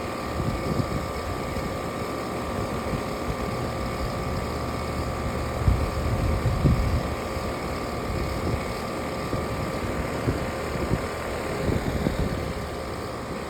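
Steady mechanical hum with a constant whine, under irregular low rumbling and buffeting.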